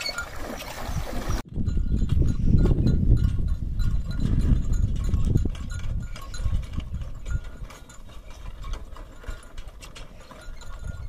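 Bullocks' neck bells jingling as the animals pull a cart, over a loud low rumble during the first few seconds.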